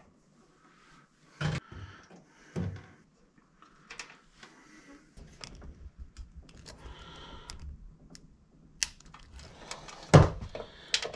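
Scattered clicks and knocks of hand tools and wire connectors being handled against an old stove's metal control panel, with soft rustling between them and a louder knock near the end.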